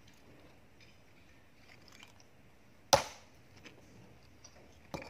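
A single loud, sharp crack of rock about three seconds in, from dark stone slabs being broken and levered loose by hand, followed by a few faint clicks of loose stone.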